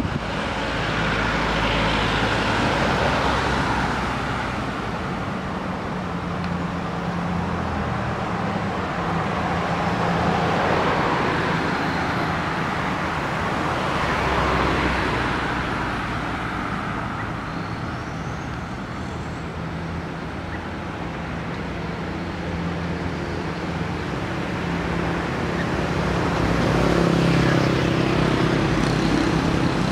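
Road traffic on a city avenue: cars passing one after another, their engine and tyre noise swelling and fading several times over a steady low hum.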